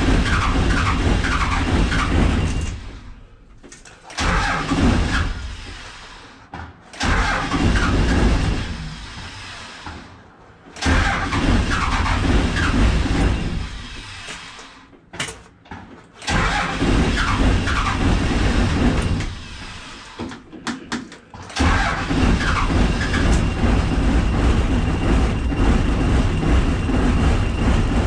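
GMC truck's engine being cold-started in winter: it fires and dies in repeated tries of a few seconds each, then catches about two-thirds of the way through and keeps running steadily.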